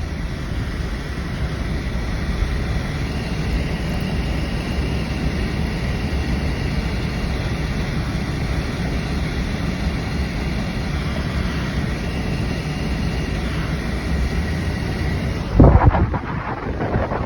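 Steady rumble and hiss of a vehicle moving on the road, with wind noise. About a second and a half before the end comes a loud thump and rustle, after which the noise changes.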